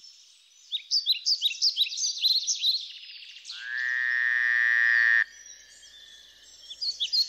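A frog's single long croaking call, rising at the start, swelling louder and then cutting off suddenly, set between stretches of fast, high chirping that come before it and start again near the end.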